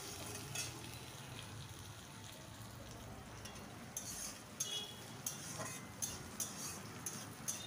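Sliced onions sizzling in mustard oil in a kadai as they fry toward reddish-brown, with a steady faint hiss. A spatula scrapes and clicks against the pan as they are stirred, once near the start and repeatedly in the second half.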